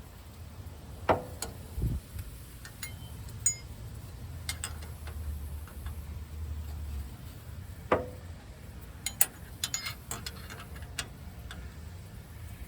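Hand tools clinking and knocking against metal truck parts while an old brake-line fitting is worked loose. There are a few sharp metallic knocks, two of them ringing briefly, and a quick run of light ticks a little after the middle.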